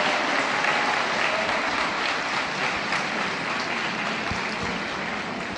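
Audience applauding in a large hall, slowly dying down.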